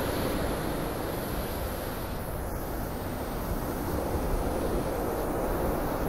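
Snowstorm wind blowing steadily, a low, even rushing noise.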